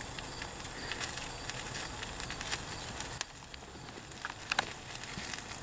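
Small fire burning on top of a car engine among the spark plug wires and hoses, crackling with scattered irregular pops over a steady hiss.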